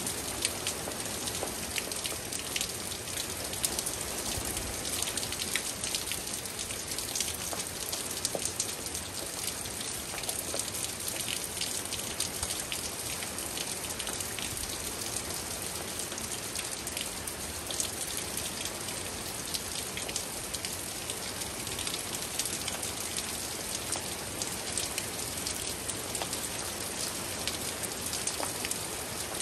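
Steady rain falling, with many individual drops striking as sharp ticks.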